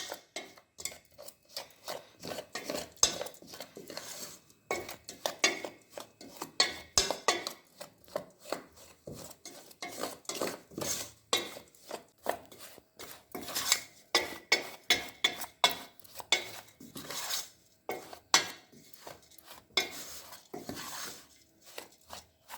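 A spoon stirring a thick spice-paste marinade in a bowl, with repeated irregular clinks and scrapes of the spoon against the bowl.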